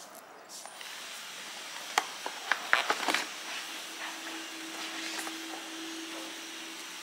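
Handling of a paper gift bag and a cardboard box as the box is lifted out. A quick cluster of sharp taps and knocks comes about two to three seconds in, then a faint steady hum starts partway through.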